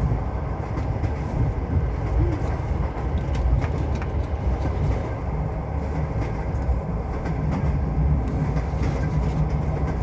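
Passenger train running, heard from inside the carriage: a steady low rumble with faint clicks of the wheels on the rails.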